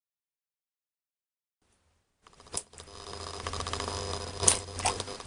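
Dead silence for about two seconds, then a low hum with scattered sharp clicks and knocks: handling noise from a handheld camera being moved about.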